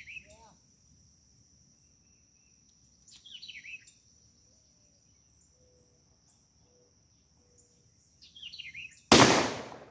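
A single shot from a Winchester SXP 12-gauge pump-action shotgun about nine seconds in, sudden and very loud, fading away over most of a second. Before it, a bird chirps in two short descending runs over a steady high insect trill.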